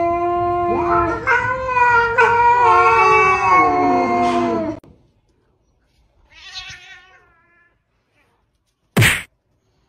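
Cats yowling: long drawn-out cries with two voices overlapping and wavering in pitch, breaking off about five seconds in. A fainter, shorter meow follows, then a sudden short, loud burst of noise near the end.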